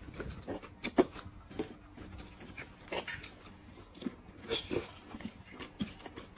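Eating sounds: noodles being slurped and chewed from a bowl, in short irregular slurps and chews with small clicks in between.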